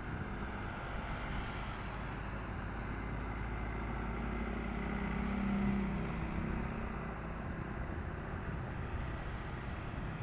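An ATR 72 turboprop airliner taxiing, its twin propeller engines running with a steady drone and a low hum that grows to its loudest about halfway through as the aircraft passes, then eases off.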